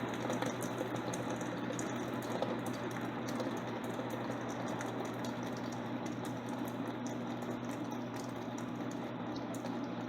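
Electrolux LTC10 washing machine partway through its jeans cycle, a steady watery churning with a low hum and many light ticks.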